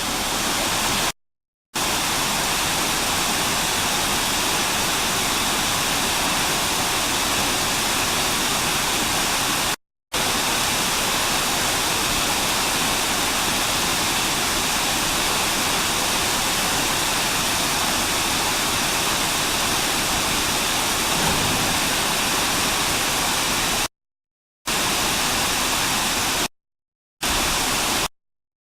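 Waterfall: falling water making a steady, loud rush. The sound cuts out completely for a moment four or five times, about a second in, around ten seconds in, and several times near the end.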